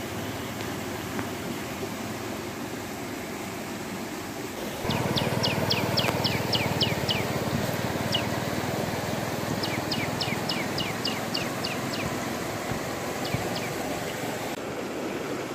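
Shallow stream water running over rocks as a steady rushing noise, louder from about five seconds in. Over it a bird calls in two quick runs of high, downward-sweeping whistled notes, about five notes a second, with a few single notes after.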